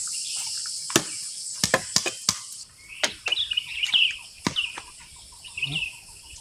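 Crickets trilling steadily, with several sharp knocks over them. The trilling stops abruptly a little under three seconds in; after that come short, repeated bird chirps and a few more knocks.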